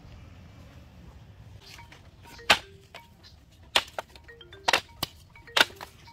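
Five or six sharp knocks at uneven intervals, starting about two and a half seconds in, with short steady tones sounding between them.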